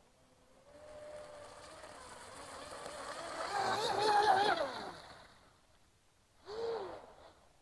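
Joysway Mad Flow F1 V3 RC speedboat's brushless electric motor whining as the boat runs past. The whine grows louder to a peak about four seconds in, then fades with its pitch dropping. Near the end there is a brief burst of whine that rises and falls in pitch.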